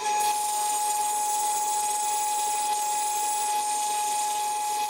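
Milwaukee cordless angle grinder with a flap disc grinding a cold MIG weld bead flush on steel square tube. It starts at once and runs at a steady speed: one steady whine with a hiss over it.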